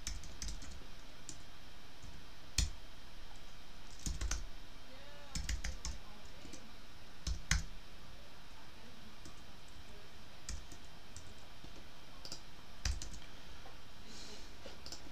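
Keystrokes on a computer keyboard: scattered taps, singly and in short runs, with pauses between.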